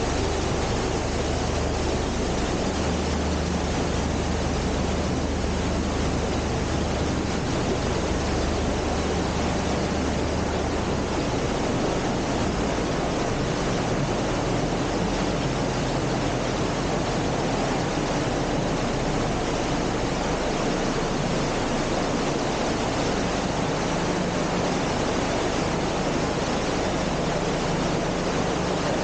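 Water gushing into a narrowboat lock chamber through the open gate paddles as the lock fills: a loud, steady rush of water, with a faint low hum underneath.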